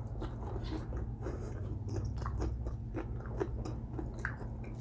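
Close-miked chewing and crunching of food: a string of small crisp crunches and mouth clicks, over a low steady hum.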